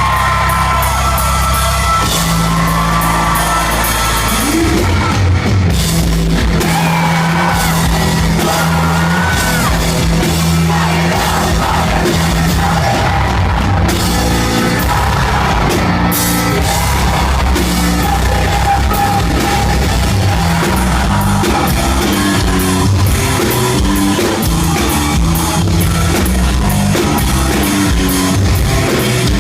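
Rock band playing live and loud: drums and held bass notes under sung and yelled vocals.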